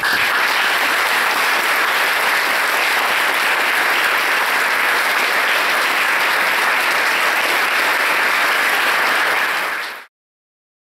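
Audience applauding steadily, with the speaker clapping along. It cuts off abruptly near the end.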